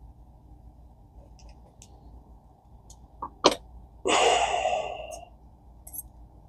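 A few light clicks of small metal reel parts being handled, two sharper ones about three and a half seconds in. Then a loud, breathy exhale that fades over about a second.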